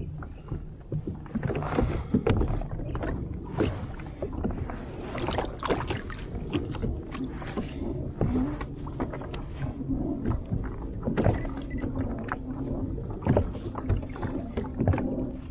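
Water slapping and knocking against the hull of a plastic fishing kayak, in short irregular splashes about once or twice a second, over a low rumble of wind on the microphone.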